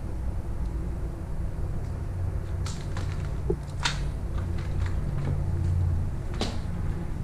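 A steady low rumble with a few sharp crunches and clicks, footsteps on broken glass and debris, about three seconds in, around four seconds in and again near the end.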